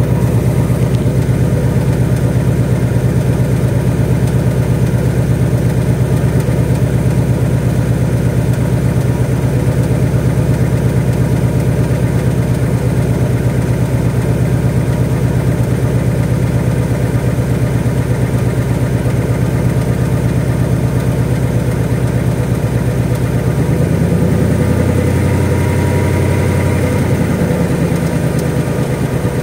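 2018 Mustang GT's 5.0 Coyote V8 idling with a typewriter-like tick that comes and goes, which the owner fears may be rod knock or piston slap. About 24 seconds in the engine speed rises briefly and then settles back to idle.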